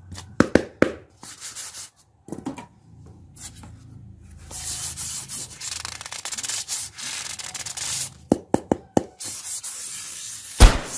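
Polystyrene foam pieces rubbing and scraping against each other and the cardboard box as they are handled, with scattered sharp clicks. A loud knock comes near the end.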